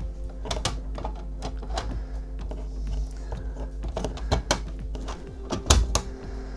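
Hard plastic clicks and knocks as a 3D-printed marker frame is handled and set around a scanner turntable, at an uneven pace, with the loudest knock near the end.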